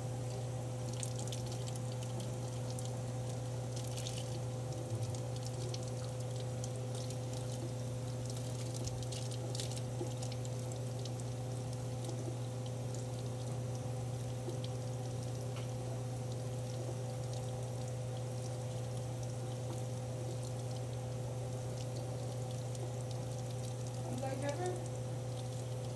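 Kitchen faucet running steadily as water pours over a squirrel monkey held under the stream, with a steady low hum beneath. Near the end, a few faint high squeaks from the monkey.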